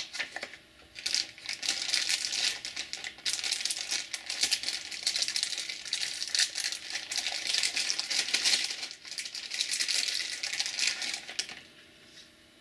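Packaging being handled and unwrapped, a run of crinkling and small clicks and rattles that stops shortly before the end.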